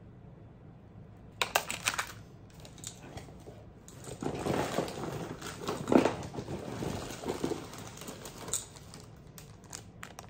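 Jewelry and packing being handled. Beaded necklaces clack in a quick cluster of sharp clicks about a second and a half in. Then there is rustling and crinkling of shredded paper and plastic wrapping, with scattered clicks, loudest around the middle.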